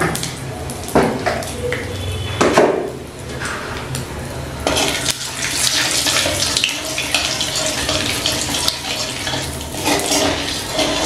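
Black cumin (nigella) seeds sizzling and crackling in hot mustard oil in a metal wok as they are tempered on low flame, with a metal spatula scraping and knocking against the wok. The sizzle grows louder and fuller about halfway through.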